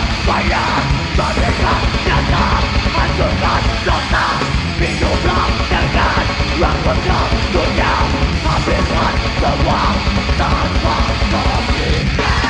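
Heavy metal band playing live: loud distorted music with yelled vocals.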